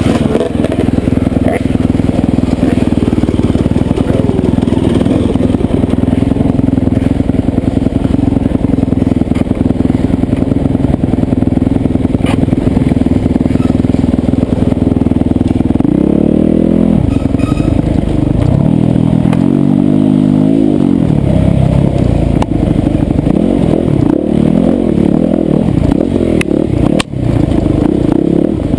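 Yamaha YZ250FX four-stroke single-cylinder dirt bike engine running under load at a steady pitch, then a little past halfway repeatedly revving up and backing off, the pitch rising and falling.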